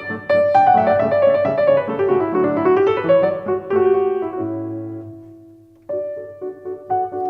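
Solo piano playing: a run of notes falls and rises again, settles on a held low chord that dies away, and a new phrase of repeated notes starts about six seconds in.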